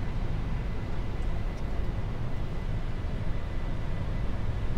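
Steady low rumble of engine and airflow noise inside the cockpit of a Boeing 747-400 freighter climbing after takeoff, with a faint steady high tone above it.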